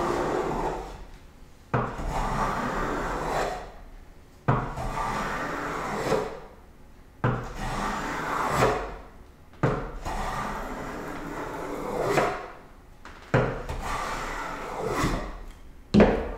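Metal smoothing plane cutting shavings along the rough edge of a maple board, taken in repeated strokes. There are about six long scraping strokes, each starting with a sharp knock as the plane lands and running about two seconds, repeating every two and a half to three seconds.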